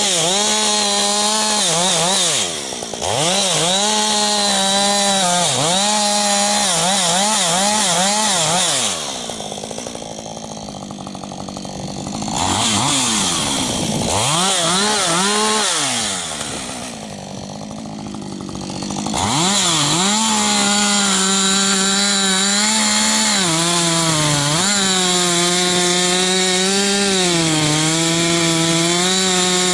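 Husqvarna 555 two-stroke chainsaw with first-generation AutoTune, cutting wood at full throttle. Its pitch repeatedly sags under load and picks back up. Twice in the middle it drops back to idle, then revs up into the wood again.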